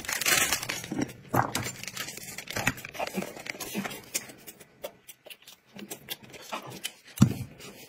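Close-miked eating sounds: irregular chewing, mouth clicks and smacks, with a few brief rustles.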